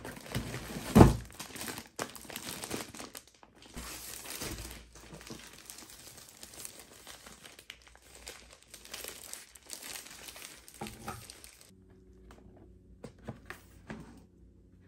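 Plastic packaging crinkling and rustling against cardboard as items are lifted out of a shipping box, with a heavy thump about a second in. The rustling thins to a few light clicks near the end.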